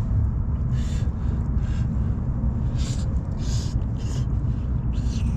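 Strong wind buffeting the microphone, a steady low rumble, with several short hissing gusts on top.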